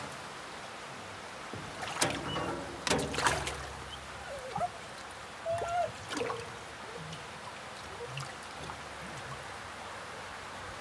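Salmon trout splashing and thrashing in shallow water in a tank fed by a wide transfer hose: two loud splashes about two and three seconds in, then smaller splashes and sloshing.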